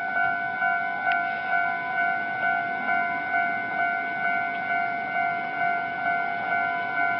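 Railway level-crossing warning bell ringing, about two strikes a second over a steady ringing tone, signalling an approaching train.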